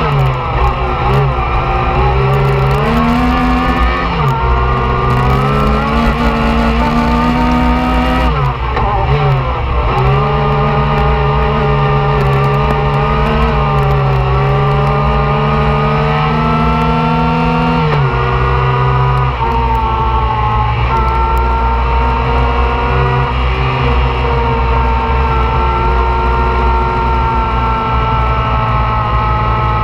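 Yamaha YXZ1000R's three-cylinder engine running hard, heard from inside the cockpit. The revs climb and drop sharply several times, about a second in, at about four and eight seconds and again near eighteen seconds, then hold steadier.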